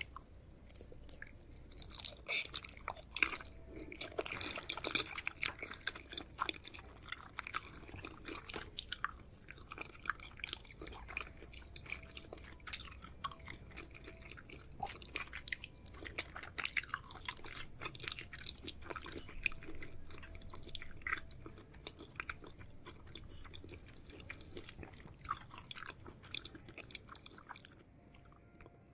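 A person biting into and chewing crispy fried chicken fillet, with irregular crunches and crackles of the fried coating throughout.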